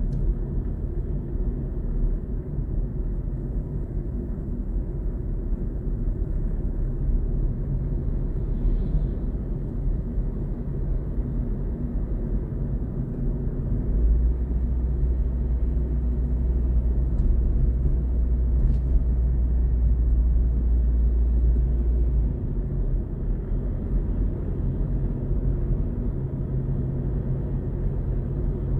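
A moving car's engine and road noise heard from inside the car: a steady low rumble. From about halfway through, for some eight seconds, a deeper drone rises over it, then drops back.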